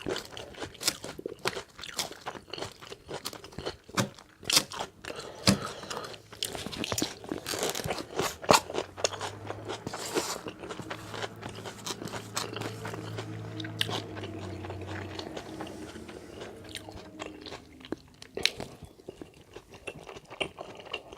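Close-up chewing of a crunchy chicken salad, open-mouthed, with crunching and smacking and many short sharp clicks all the way through. A low steady hum runs for several seconds in the middle.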